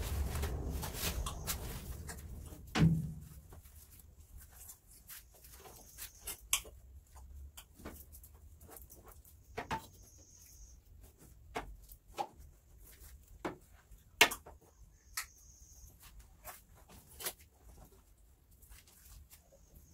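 Wooden-handled floor brush being worked in a bathroom: a rough scrubbing swish for the first couple of seconds, a loud knock about three seconds in, then scattered sharp taps and knocks of the brush and its handle.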